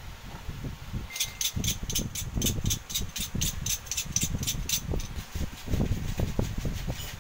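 Handling and rustling noises at a workbench, with a rapid run of high clicks, about five a second, that starts about a second in and fades after about four seconds.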